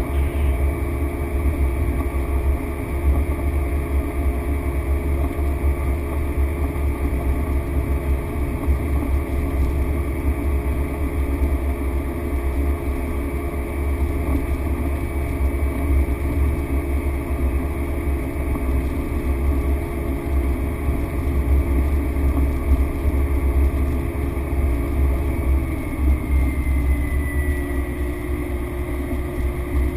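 Cessna Grand Caravan's Pratt & Whitney PT6A turboprop engine and propeller running steadily with a strong low drone and a high whine. Near the end the pitch slides slightly lower.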